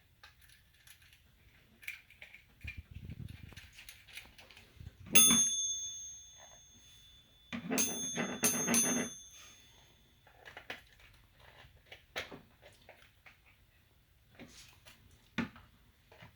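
Small metal object clinking against a hard surface about five seconds in, ringing briefly with a bell-like tone. A few seconds later it clinks and rings three more times in quick succession, amid light clicks of parts and tools being handled.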